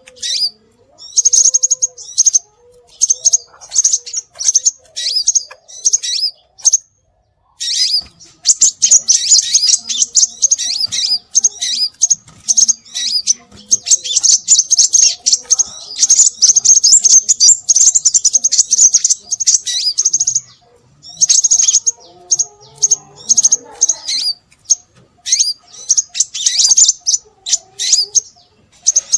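Scarlet minivet calls: rapid, high-pitched chirps in quick bursts. The chirps pause briefly about seven seconds in, then run densely for over ten seconds.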